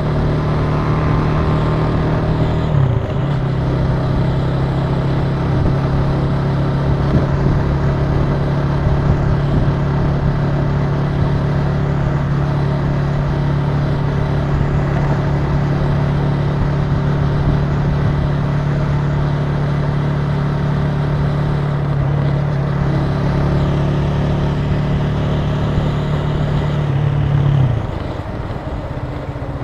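Italika TC300 motorcycle engine running steadily while riding, with a sudden drop in pitch about three seconds in. Near the end the engine note drops again and gets quieter.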